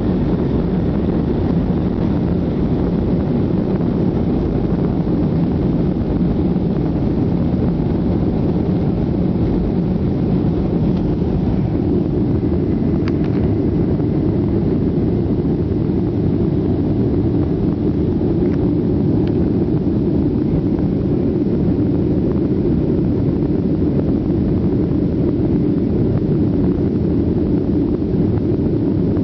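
Boeing 737 jet engines at takeoff thrust, heard from inside the cabin over the wing: a loud, steady low rumble through the end of the takeoff roll, liftoff and initial climb.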